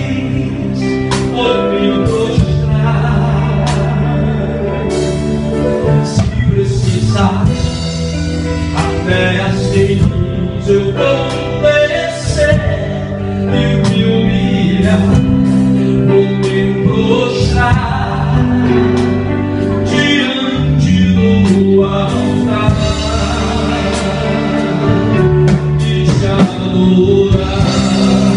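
Live gospel music: a male singer with a band, held bass notes under a steady drum beat.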